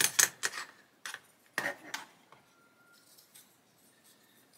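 A small clamp being worked onto a plastic model hull: a quick run of sharp clicks and rasps over the first two seconds or so.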